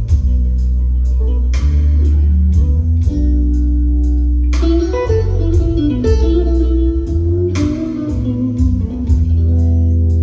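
Music played through Revel M16 speakers driven by a Vincent SP-331 tube-input power amplifier: a blues-tinged track with plucked guitar and heavy bass over a steady beat.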